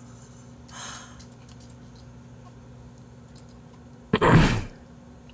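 A person breathing out hard into the microphone about four seconds in, with a softer breath about a second in. A low steady hum runs underneath.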